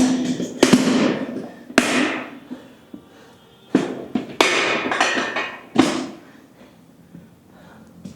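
Metal dumbbells clanking as they are set down and handled after a set: about six sharp clanks with a ringing decay over the first six seconds, then quieter.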